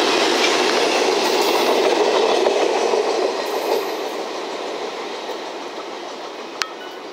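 Electric trains passing on the track, a local train and an EF210 electric locomotive hauling two rail-laden flat cars, with wheels running on the rails. Loudest for the first three seconds or so, then fading as the freight train draws away. A single sharp click about six and a half seconds in.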